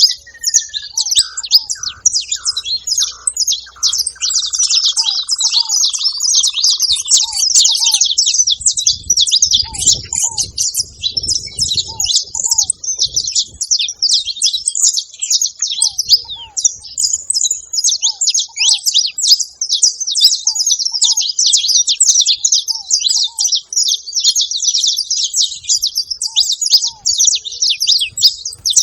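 Saffron finch singing a fast, unbroken, high chattering song. A short pair of lower notes repeats every second or two beneath it, and a falling whistle sounds in the first few seconds.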